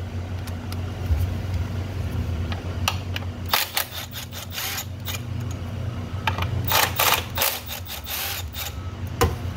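Milwaukee cordless 3/8-inch electric ratchet running in several short bursts to back out bolts, with clicks from the ratchet and socket between them. A steady low hum runs underneath.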